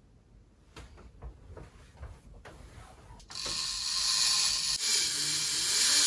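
Bamboo roll-up window blind being raised: a run of clicks from its pull-cord mechanism, then, about three seconds in, a louder steady rustling hiss as the slats roll up.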